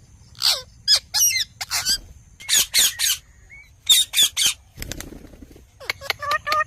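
Indian ringneck parakeet squawking: short, harsh, high calls in quick clusters of two or three. A soft rustle comes about five seconds in, followed near the end by a run of clipped pitched calls.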